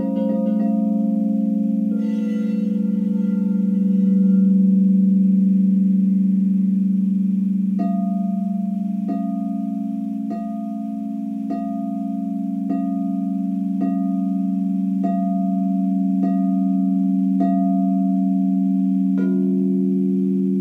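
Frosted quartz crystal singing bowls ringing: a low tone holds steady throughout while a higher bowl is struck in an even, slow pulse, roughly one strike a second from about eight seconds in. Near the end another strike brings in a new note.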